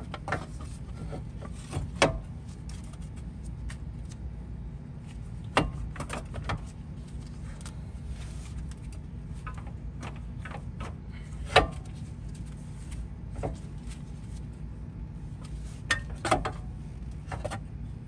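Scattered metallic clicks and clinks as a front wheel hub bearing assembly and its brake dust shield are worked onto the drive-axle splines and against the steering knuckle, with two sharper knocks about 2 and 11 seconds in. A steady low hum runs underneath.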